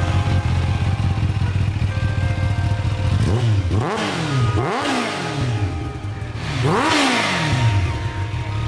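Supercharged Kawasaki Ninja H2's inline-four engine idling through an Akrapovič exhaust, then revved three times, each rev rising sharply and falling back to idle.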